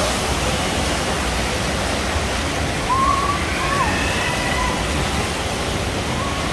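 Steady rushing of pool water churned by the jet-ski-shaped seats of a spinning water ride, with faint voices about halfway through.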